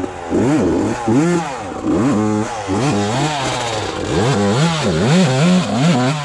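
Dirt bike engine revved up and down in quick throttle blips, about a dozen rises and falls in pitch.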